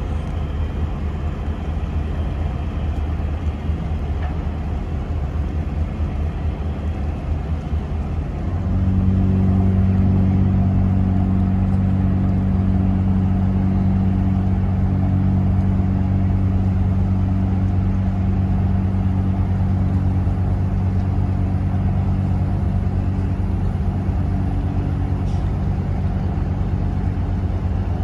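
A ship's engine droning steadily as the vessel moves through the harbour, a deep hum with an overtone an octave above. About eight seconds in it gets clearly louder and fuller, then holds steady.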